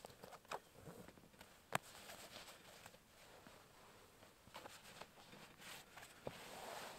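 Faint rustling of canvas and clothing as a canvas backpack is opened and a garment is pulled out, with scattered small clicks and one sharp click a little under two seconds in.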